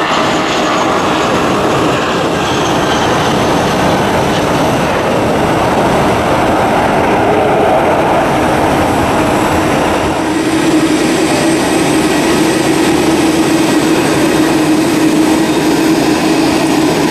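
Jet airliner engines: a four-engined Airbus A340-300 at takeoff power lifting off the runway, then, about ten seconds in, a steadier hum of airliner engines at low thrust as a jet taxis.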